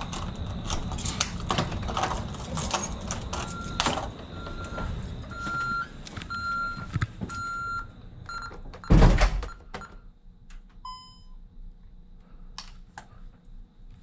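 Keys jingling and clattering with handling noise, then a regular series of short electronic beeps about one a second for several seconds. About nine seconds in a heavy door thuds shut, followed by a single short beep.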